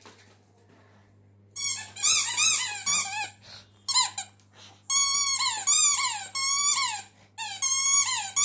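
A rubber squeaky dog toy squeezed in a Pomeranian's jaws, squeaking again and again in quick runs, each squeak rising and falling in pitch. The squeaking starts about a second and a half in and comes thicker in the second half.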